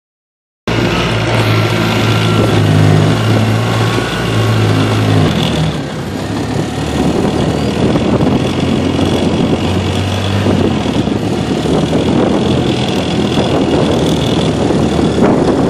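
Side-by-side utility vehicle's engine running as it drives, with a broad rushing noise under it; the engine note drops in pitch about five seconds in.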